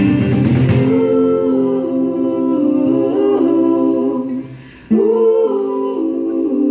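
Several women's voices singing held harmony notes a cappella, after the acoustic guitar strumming stops about a second in. The voices fade out, then come back in together on a new chord about five seconds in.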